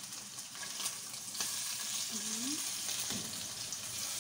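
Bone-in chops of meat sizzling as they sear in a hot frying pan, with a fork clicking and scraping against the pan as the pieces are turned over. The sizzle gets louder about a second and a half in.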